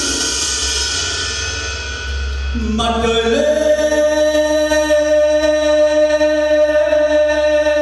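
Backing track playing, then a male singer on a microphone comes in just under three seconds in and holds one long note to the end.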